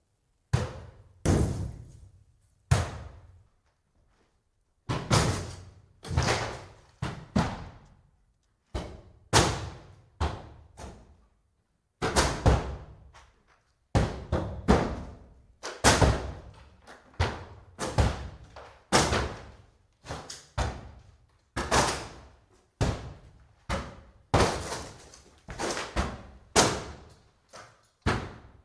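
Axe blows chopping into a wooden structure: heavy, separate wooden impacts at an irregular pace of about one a second, each dying away quickly, with a few short pauses between runs of strokes.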